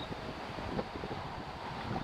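Wind buffeting the microphone: an even rushing noise with uneven low gusts.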